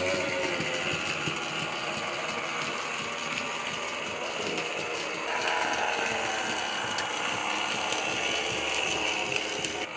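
Hornby BR Ivatt Class 2 2-6-0 model locomotive with its X03 motor running fast round the layout: a steady motor whirr with light clicking of the wheels over the track. It grows louder about five seconds in.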